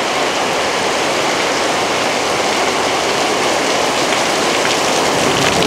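Heavy rain pouring down in a steady, even downpour.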